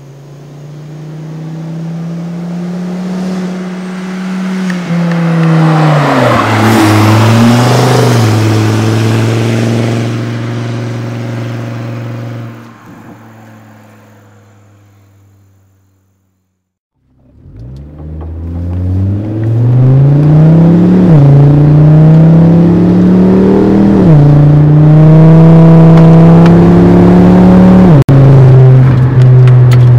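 Volvo S40 T5's turbocharged five-cylinder, with a catless downpipe, Magnaflow resonator and muffler delete, driving past under power. It swells, drops in pitch as it passes about six seconds in, and fades away. Then, heard from inside the cabin, it accelerates hard, the pitch climbing and dropping at each of three gear changes.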